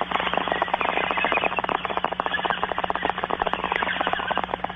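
Bong hit: water bubbling rapidly and continuously through a bong as smoke is drawn through it, played as a sound effect.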